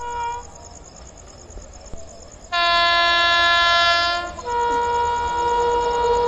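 WAP-7 electric locomotive's horn sounding: a short honk at the start, then a loud long blast from about 2.5 s in that switches to a higher note about 4.5 s in and holds.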